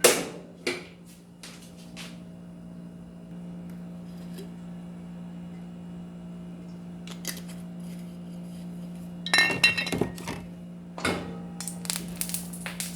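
Kitchenware clattering: pots, utensils and dishes knocking and clinking, with a few sharp knocks in the first two seconds, a louder run of clatter about nine seconds in and busier clinking near the end. A steady low hum runs underneath.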